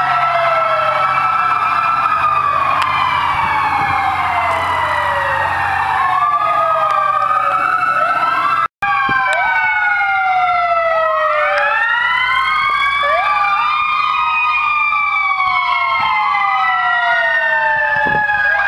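Several fire truck sirens wail at once, out of step with one another, so their rising and falling tones overlap and cross. A low engine drone runs beneath them for the first few seconds. The sound cuts out for a moment about nine seconds in.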